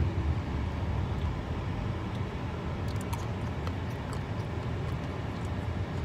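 Steady low rumble of a car heard from inside its cabin, with a few faint clicks.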